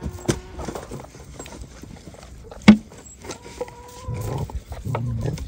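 A large shepherd dog eating meat: chewing and crunching with scattered clicks, and one sharp, loud crack about two and a half seconds in.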